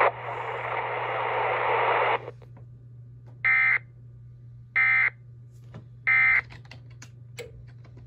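EAS encoder/decoder sending its End of Message: three short, identical bursts of data-tone screech about 1.3 seconds apart, the EOM code that closes the alert. Before them, the hiss of the replayed weather-radio audio cuts off about two seconds in, and a few small clicks follow over a steady low hum.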